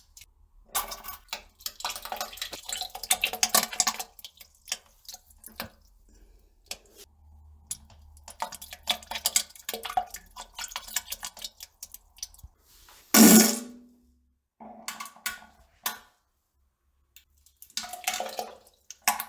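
A person defecating: several stretches of dense, crackly sputtering, with one short, louder fart with a low tone dropping in pitch about two-thirds of the way through.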